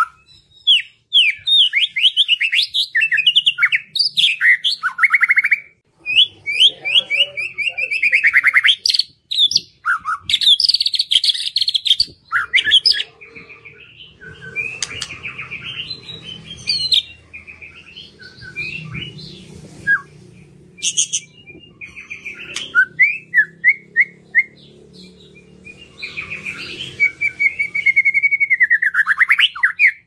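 White-rumped shama (murai batu) in full song: fast runs of down-slurred whistled notes and trills, broken by sharp, dry clicking rattles, with brief pauses between phrases.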